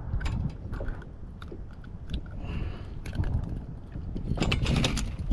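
Handling noise from unhooking a flounder: scattered clicks and scrapes of pliers and hook against the fish's mouth, with a louder rustling scuffle about four and a half seconds in. Low wind rumble on the microphone underneath.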